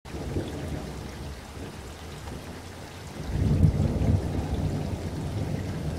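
Rushing water noise with a low rumble, growing louder about three seconds in.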